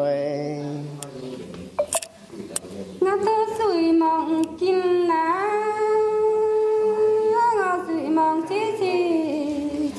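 A voice singing a slow Dao folk love song in long, drawn-out notes that slide up and down, with no words picked out. About a second in, the singing breaks off briefly, with a few sharp clicks, before a long held phrase begins about three seconds in.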